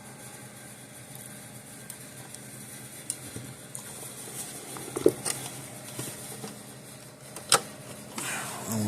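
Small clicks and taps of hands fitting crimped spade connectors and wires inside a fence energizer, with a few sharper clicks about five seconds in and one at about seven and a half seconds, over a faint steady low hum.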